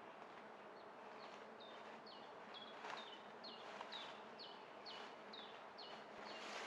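Forest ambience: a steady insect hum, with a high, short chirp that drops in pitch, repeated about twice a second from about a second in.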